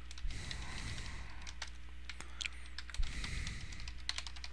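Typing on a computer keyboard: scattered, irregular key clicks as lines are entered in a text editor, over a faint steady low electrical hum.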